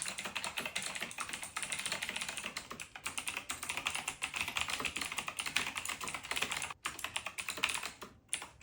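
Razer BlackWidow V4 Pro mechanical keyboard being typed on fast and continuously, a dense patter of keystroke clicks, with two brief pauses near the end.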